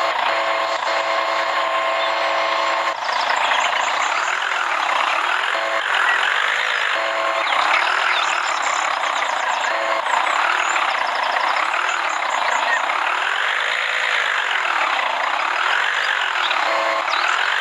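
Siren wailing, rising and falling about once every two seconds over a steady hiss, after a few seconds of a steady beeping tone at the start.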